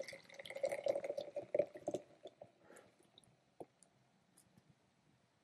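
Carbonated kombucha poured from a can into a glass mason jar, the liquid splashing for about two seconds, then faint fizzing with scattered small pops of bubbles dying away.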